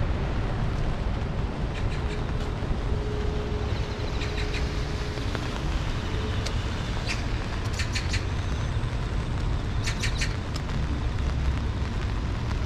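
Steady hiss of heavy rain over a low rumble of road traffic, with a few short high-pitched chirps scattered through.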